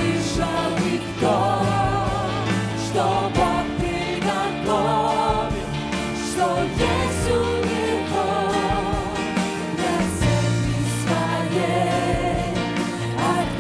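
Live worship band playing a slow song: several singers holding long notes with vibrato over keyboard, electric guitar and bass guitar, the bass note changing every few seconds.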